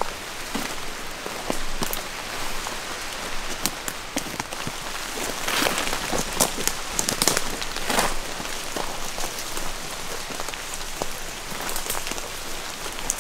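Footsteps crunching through leaf litter, with brush swishing against clothing and twigs crackling; louder swishes come about halfway through and again around eight seconds in.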